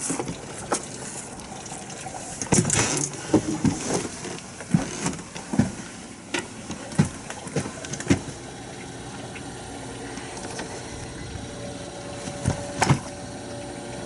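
Knocks and bumps of stepping into a motorhome and handling the cabinet around its Truma water heater, then a steadier noise of water moving through the heater and pipes while the water pump runs.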